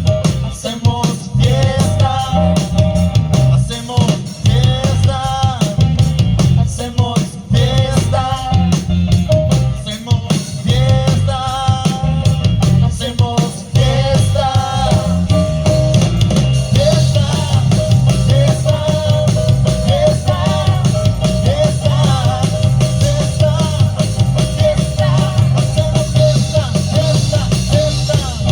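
Band music with a drum kit and a singing voice, playing a steady beat.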